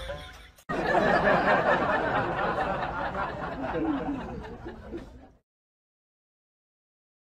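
Laughter-like voices, cutting off suddenly about five seconds in and leaving dead silence.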